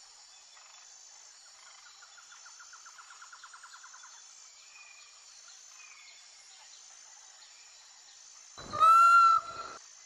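A peacock (Indian peafowl) gives one loud, short call with an arching pitch about nine seconds in. Before it there is only faint outdoor background, with a soft rapid trill for a couple of seconds.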